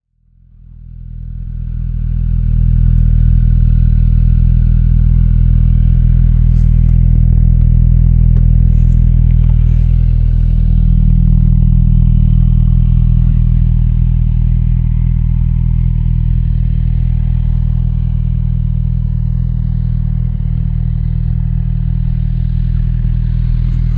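Kawasaki Z900 SE inline-four engine idling steadily through an SC Project aftermarket exhaust, a deep, even low note that holds the same pitch throughout.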